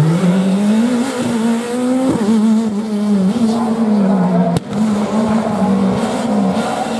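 Škoda Fabia S2000 rally car's engine revving hard as it passes. Its pitch climbs in the first second, then holds high with short dips as the throttle is lifted and reapplied. There is a single sharp crack about four and a half seconds in.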